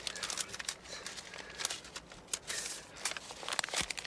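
Irregular rustling and crinkling with many small clicks, the sound of clothing or paper being handled, and a soft knock near the end.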